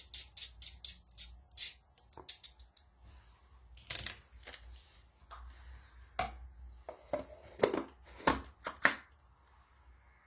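Sharp clicks and knocks from handling a cordless handheld vacuum cleaner, with the motor off. A quick run of regular clicks comes at the start, then scattered clicks and a few louder knocks near the end.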